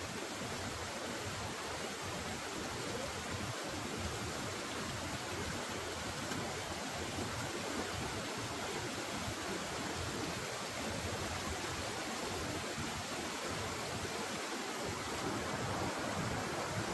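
River water flowing, a steady rushing noise.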